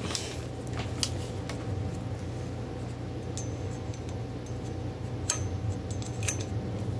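A small scooter clip being worked and handled by hand, giving scattered light clicks and clinks over a steady low hum.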